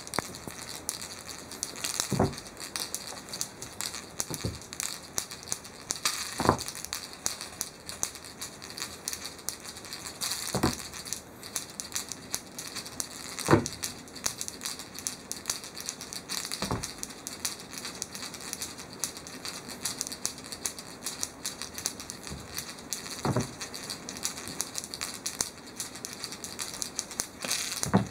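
A cat playing with a feather cat-teaser toy on the floor: constant light rustling and crackling, with a thump every few seconds, about eight in all.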